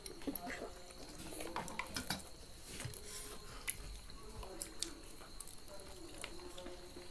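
Quiet eating sounds: scattered small clicks and knocks of utensils against bowls and plates as children eat.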